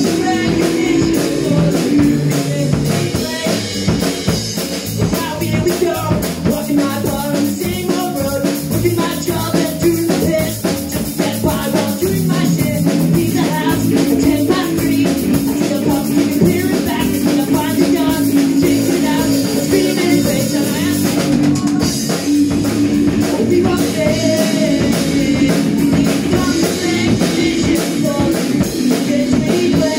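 Live rock band playing loud and steady: amplified electric guitars over a drum kit.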